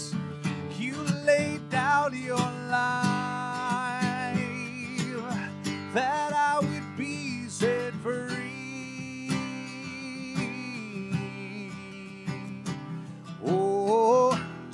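A man singing a slow worship song over a strummed Taylor acoustic guitar, his voice holding long notes between shorter phrases.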